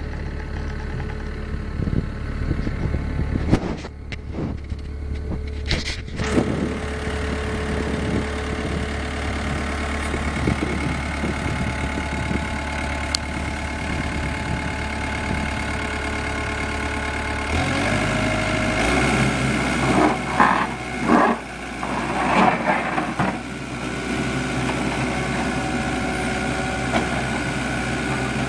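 Takeuchi TL250 tracked skid steer's diesel engine running steadily with a high whine, its engine note shifting about two-thirds of the way through; a few clanks and knocks, several close together near the end.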